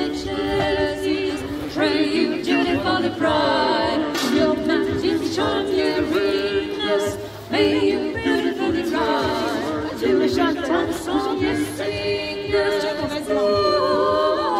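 A small group of carol singers, a man and two women, singing a carol unaccompanied, several voices together, phrase by phrase with short breaks between lines.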